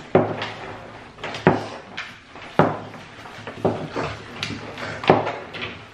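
Irregular knocks and clatters, about six sharp ones a second or so apart, from slime-making materials and containers being handled on a table.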